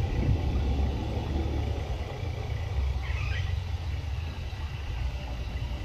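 Thunderstorm outdoors: a steady low rumble with a faint hiss above it, and a short high chirp about halfway through.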